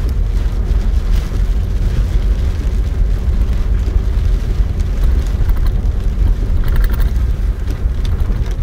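Car driving along a wet dirt road, heard from inside the cabin: a steady low rumble of the engine and tyres.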